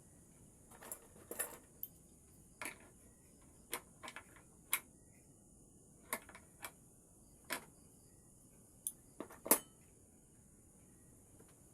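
Irregular sharp clicks and knocks of small hard parts being handled and tapped during hand work, about fifteen of them, the loudest near the end. A steady high insect trill, typical of crickets, runs underneath.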